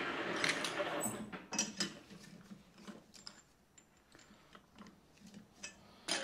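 Metal lathe running with its four-jaw chuck turning, then switched off about a second in and running down to a stop. After that, a few light clicks and ticks as the stainless rod in the stopped chuck is handled, with a sharper clatter of clicks right at the end.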